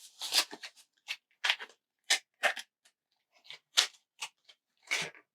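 Calculator keys being pressed one after another to enter and add a price: about ten short, irregular clicks and taps.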